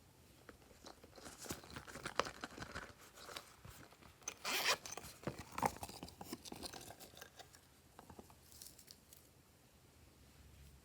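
Glossy slime being mixed and squeezed by hand, giving a run of small crackles, pops and squelches, loudest about four and a half seconds in and thinning out near the end.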